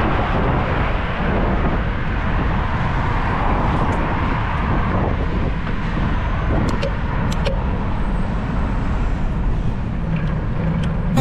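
Steady wind rumble on the microphone of a moving bicycle, mixed with street traffic noise, with a few faint clicks about two-thirds of the way in.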